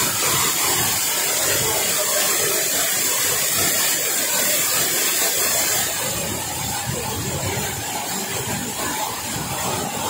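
Waterfall crashing into a pool at close range: a steady, dense rush of falling water and spray, a little quieter from about six seconds in.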